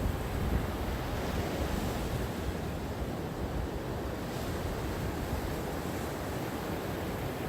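Gentle ocean waves washing onto the shore, a steady rushing surf with soft swells.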